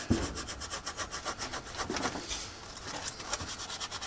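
Paintbrush scrubbing back and forth over a dried, hardened gold pigment ink pan in quick scratchy strokes, working to lift colour from the hard ink.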